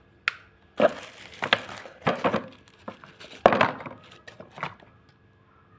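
Handling of a 3-in-1 tripod selfie stick and its packaging: a sharp click, then several short rustling, scraping bursts and a few small clicks.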